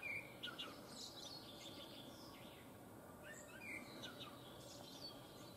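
A songbird singing faintly: two similar song phrases of quick chirps and pitch glides, the second about three seconds after the first, over a steady low outdoor hiss.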